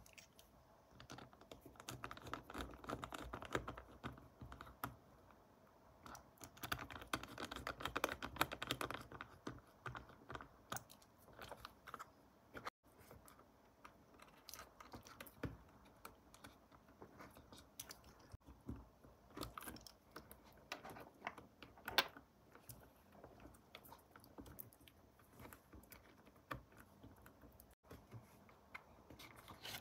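Faint clicks, taps and light scrapes of a small precision screwdriver and fingers working on a Li-ion battery-pack board, driving screws and handling the board; the clicking is busiest about two seconds in and again from about six to nine seconds.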